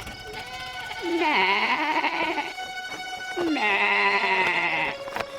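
A lamb bleating twice, each call about a second long with a wavering, quavering pitch.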